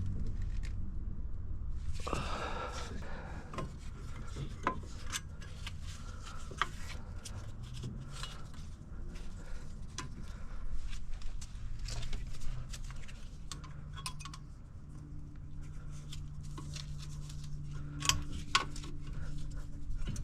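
Metal clicks, taps and scraping as a truck's front brake caliper is worked by hand, its pistons pushed back so it fits over new pads and the rotor. A brief louder scrape comes about two seconds in.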